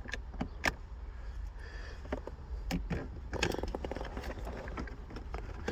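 Scattered light clicks and taps from handling the car key and the gear shifter's trim parts, over a low steady hum.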